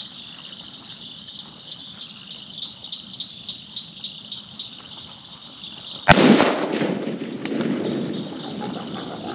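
A single rifle shot about six seconds in, taken at feral hogs, over a steady chirring of night insects. After the shot comes a few seconds of lower rumbling noise.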